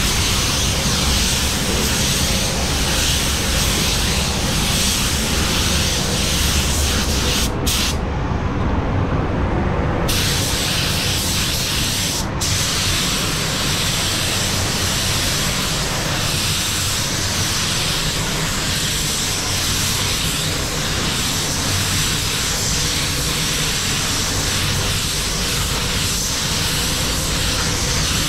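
Compressed-air paint spray gun hissing steadily as paint is sprayed, over the steady low hum of the spray booth's ventilation. The hiss cuts out briefly about seven seconds in, for a couple of seconds around eight seconds in, and again briefly about twelve seconds in, as the trigger is let go.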